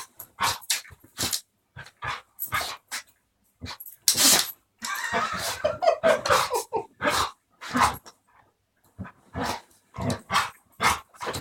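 A dog sneezing over and over: a run of short, sharp sneezes and snorts through the nose, with a longer, louder burst about four seconds in.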